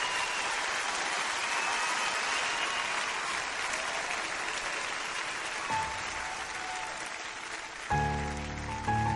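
Concert audience applauding and cheering, with the applause thinning as a Yamaha grand piano starts to play. A soft piano note comes a little past halfway, then a deep, full chord near the end begins the piece.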